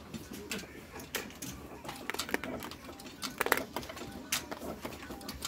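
Casino chips clicking against one another as they are picked up and stacked off the felt: scattered sharp clicks, with a quick cluster about three and a half seconds in.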